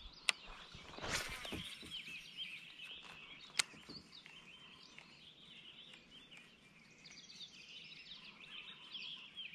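Quiet outdoor birdsong: many small birds chirping at once in the background. A brief rush of noise comes about a second in, and a few sharp clicks stand out, the loudest about three and a half seconds in.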